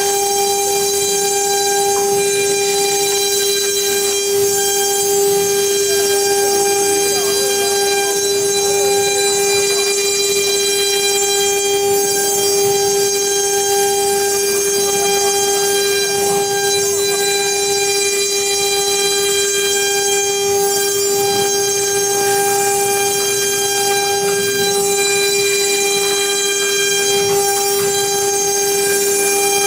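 Blue Elephant CNC machine cutting EVA foam, a steady high-pitched whine at one unchanging pitch.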